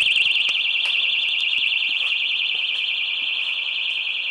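Bunker Hill Security motion alarm on an RV door, set off by the jarring of the door, sounding a loud, high-pitched, rapidly warbling siren without a break.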